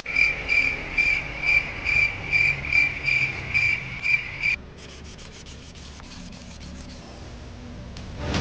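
Hand sanding of an aluminium alloy wheel with P240 sandpaper: quick, even, high-pitched rasping strokes, about two and a half a second. They stop abruptly about four and a half seconds in, and only faint light scratching follows.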